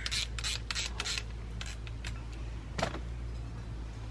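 Hand ratchet wrench clicking in quick, even strokes on the winch fairlead's mounting bolts, stopping about a second in; a few scattered clicks and one louder knock follow.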